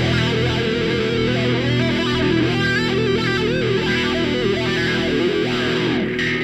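Background music led by a distorted electric guitar playing a melody that bends in pitch over held chords.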